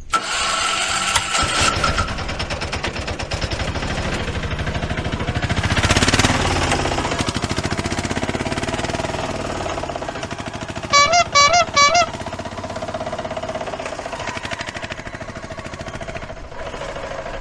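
A small engine chugging fast and steadily, like an auto-rickshaw's engine, with four short wavering horn toots about eleven seconds in, the loudest sounds.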